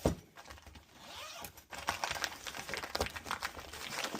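Handling noise as accessories are lifted out of a tool case: a knock at the start, then rustling, scraping and a quick run of small clicks in the second half.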